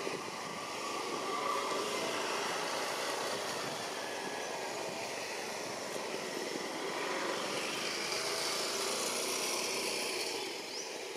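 Steady outdoor background noise with no distinct events, a hum like distant traffic, easing slightly near the end.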